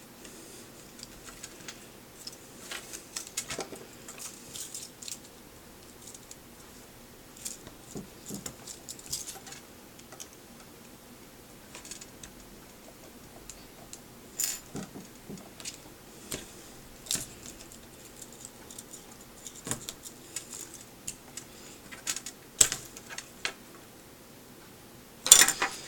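Irregular light clicks, taps and scrapes of small plastic and metal parts being pried apart while a tiny LCD display is worked off its mount inside an iWear AV230 XL video headset. The loudest, sharpest clack comes near the end.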